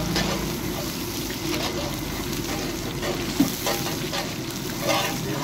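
Hot oil in a large street-stall wok bubbling and sizzling steadily around a batch of deep-frying marinated pieces. A large metal slotted spoon stirs through the oil, with a few light clicks and one sharp metal knock about three and a half seconds in.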